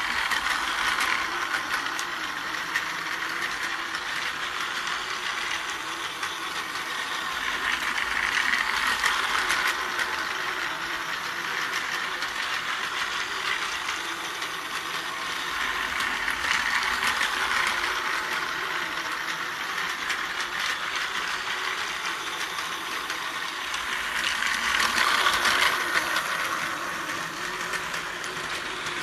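Takara Tomy Plarail toy train (Kiha 183 series 'Asahiyama Zoo' set) running laps on plastic track: its small battery motor whirring and its gears and wheels rattling. The sound swells each time the train passes close, about every eight seconds.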